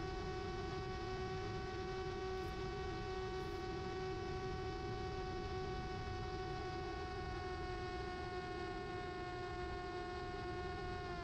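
Mini Drak flying wing's brushless electric motor and propeller heard from the onboard camera: a steady high whine over a low rush of wind. The whine starts to drop in pitch at the very end as the motor winds down.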